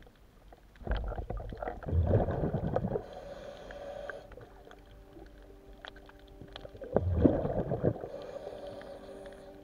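Scuba diver breathing underwater through a regulator: two bursts of exhaled bubbles rumbling and crackling, about six seconds apart, each followed by a fainter hiss.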